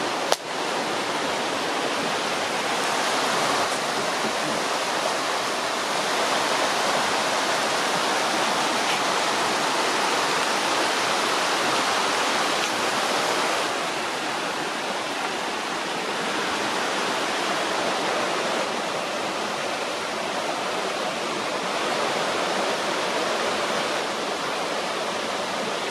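Steady rushing of flowing river water, with one brief sharp click just after the start.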